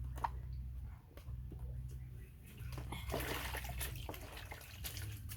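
Water sloshing and splashing in a small tub or basin as a pet monkey is bathed, with the loudest, noisiest splashing about three seconds in. A steady low hum runs underneath.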